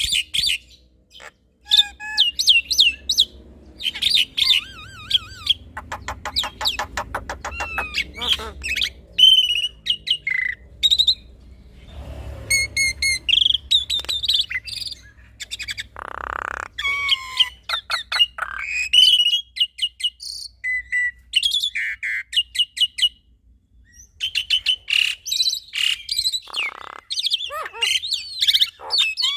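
Black-winged myna (jalak putih) and Javan myna (jalak kebo) singing in a busy duet: a fast, varied run of chirps, whistled glides, rattling trills and harsh notes, broken by a couple of brief pauses.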